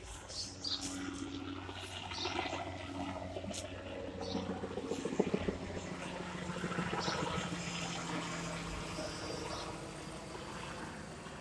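Helicopter flying past overhead: a steady engine and rotor drone with a fast rhythmic blade chop, loudest about five seconds in.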